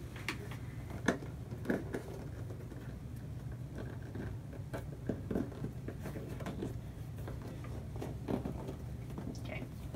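Room tone with a steady low hum and scattered soft clicks and knocks, a second or so apart.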